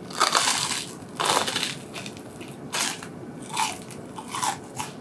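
Crunching bites into a crisp, flaky square croissant: a loud crunch as it is bitten, a second a second later, then several shorter crunches of chewing.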